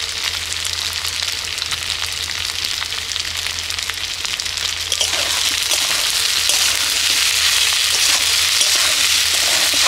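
Radish and potato pieces sizzling in hot mustard oil in an aluminium karai, with faint clicks. The sizzling gets louder about five seconds in as a metal spatula stirs the salt and turmeric through.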